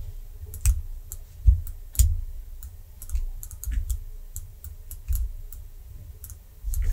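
Computer mouse clicking irregularly: a dozen or so short, sharp clicks, some paired with a dull low thump, the loudest about one and a half and two seconds in.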